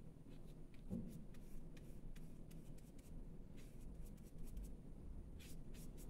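Faint scratching and dabbing of a paintbrush laying acrylic gouache on paper, in short scattered strokes, with a couple of slightly stronger scrapes near the end.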